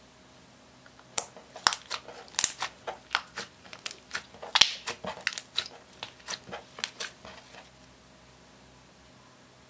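Clear slime mixed with eyeshadow being squeezed, folded and stretched by hand, giving a quick, irregular run of sticky clicks and pops. It starts about a second in and stops near the end.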